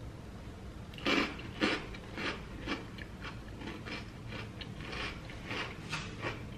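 Chewing a crunchy mouthful of Caesar salad of iceberg lettuce and croutons: a run of crunches about two a second, loudest about a second in and then softer.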